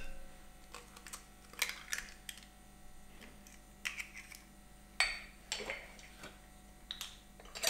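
An egg tapped and cracked open over a glass mixing bowl, with a few light, scattered taps and clicks of shell and small utensils being handled and set down.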